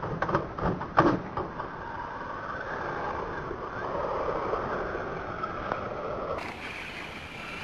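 A Tamiya TT-01 radio-controlled car clattering with several sharp knocks as it bounces down concrete steps. Then comes the steady whir of its small electric motor and drivetrain as it drives along the pavement.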